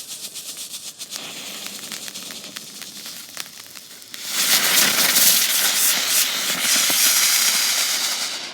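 Small ground spinner firework: a fuse sputtering and crackling for a few seconds, then the firework catching with a loud, steady hissing spray of sparks that lasts about four seconds and dies away near the end.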